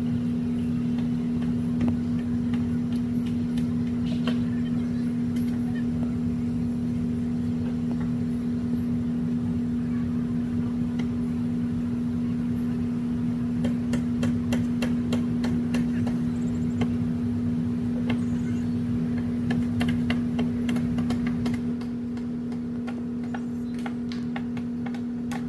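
Steady drone of a vehicle on the move, with scattered sharp ticks and clicks throughout; the drone drops slightly in level about 22 seconds in.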